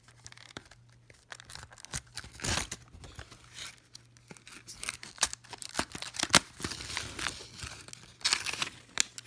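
Fidget spinner packaging being torn open and crinkled by hand: irregular tearing and rustling that grows busier in the second half, over a faint steady low hum.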